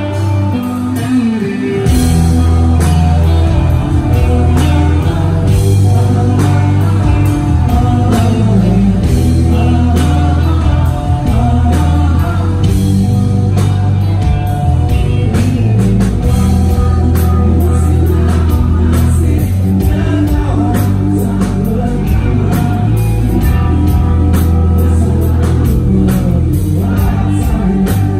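Rock band playing live on stage: electric guitars, bass guitar and drum kit, with singing over them. The bass and full band come in strongly about two seconds in.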